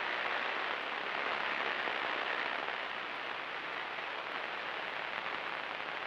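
Steady hiss of the aircraft's radio and intercom audio feed, with no transmission and no engine pitch coming through.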